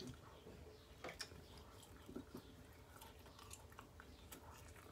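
Faint chewing of a mouthful of burrito, with scattered soft mouth clicks.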